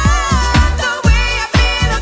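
Early-'90s dance-pop music with a steady kick-drum beat, about two beats a second, under a melody line that bends in pitch.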